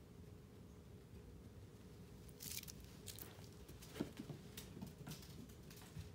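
Faint rustling and a few light clicks and taps close to the microphone, starting about two and a half seconds in, with the sharpest tap about four seconds in. The sounds come from a kitten bringing a small toy back in its mouth during a game of fetch, with the toy being dropped and handled.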